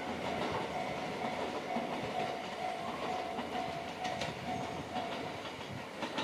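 E261 series electric limited express train running on the rails, a steady rumble with a few sharp clicks of the wheels. A thin steady tone sounds over it and fades out near the end.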